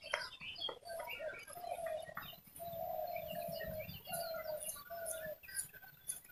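Birdsong: one bird gives a run of five clear, slightly falling notes, the middle one the longest, while smaller birds chirp at a higher pitch.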